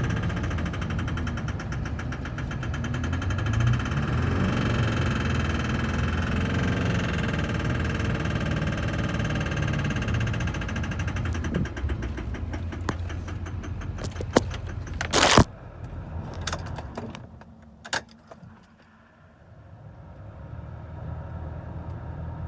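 LB7 Duramax 6.6-litre V8 turbodiesel running, its bad injectors the reason it is being run. About fifteen seconds in there is one loud sharp burst, after which the engine sound drops away for a few seconds and then rises again.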